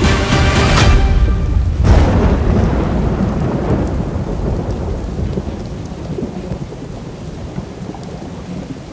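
Music cuts off about a second in, followed by a thunderclap a second later and then a long rolling thunder rumble over steady rain, all slowly fading away.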